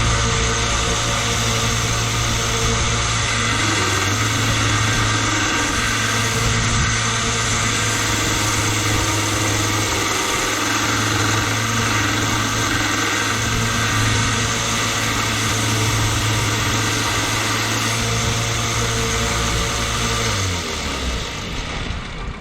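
A small 1x30 belt sander running steadily while grinding a stacked leather knife handle down to shape: a constant motor hum under the rasp of the belt. The sander switches off and winds down a couple of seconds before the end.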